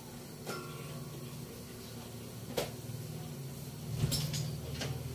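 Glass-paned wooden cabinet door being opened and handled: a sharp click about two and a half seconds in, then a cluster of clicks and knocks around four seconds in, over a low steady hum.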